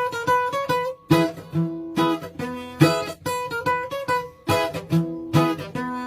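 Acoustic guitar music, plucked and strummed chords with picked melody notes, each chord sounding sharply and then ringing away.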